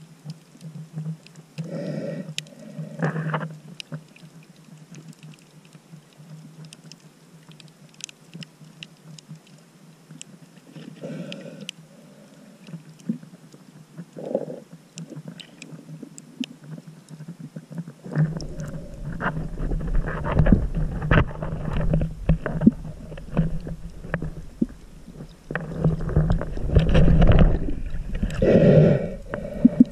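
Muffled underwater sound of water moving around a submerged camera: a low steady hum with a few short swishes, turning a little past halfway into a louder churning rumble with frequent splashy strokes as the camera moves through the water.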